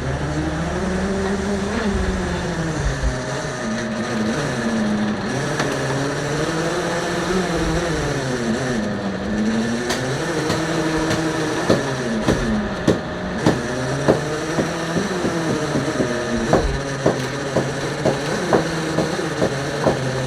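A fishing boat's motor runs as the net is hauled up, its pitch rising and falling every few seconds as the load changes. From about halfway in, sharp knocks come at a fairly regular pace.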